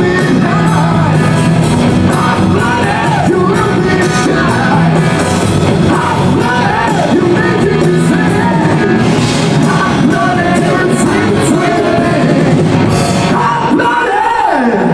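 Rock music with a male singing voice over loud distorted guitars and drums.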